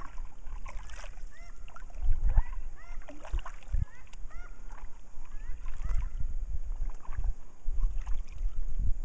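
Birds calling over and over in short arched chirps, over uneven wind rumble on the microphone.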